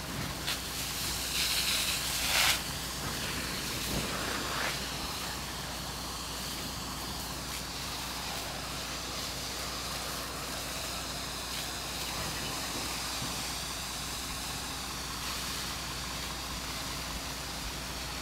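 Fire hose streams hissing steadily as they spray water onto burning brush, with a louder burst of hissing about two seconds in. A steady low engine hum runs underneath.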